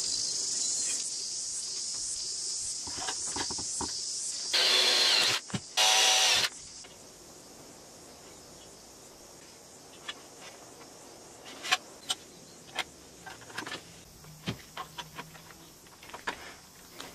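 Two short bursts of a cordless drill boring through an aluminium mast tube, over a steady chirring of crickets. Later comes a string of sharp clicks from a hand rivet gun setting rivets.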